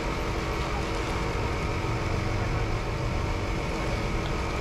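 Busy city street ambience: a steady wash of traffic with vehicle engines running, and a faint steady hum underneath.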